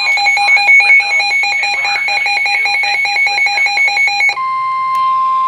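Weather radio warning alert: shrill electronic tones pulsing rapidly and switching between pitches for about four seconds, then cutting over to a single steady high tone, the NOAA Weather Radio warning alarm tone that comes before a warning announcement.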